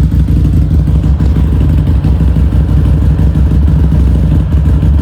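Harley-Davidson Street 500's V-twin engine idling steadily, loud and close, with a fast even pulse.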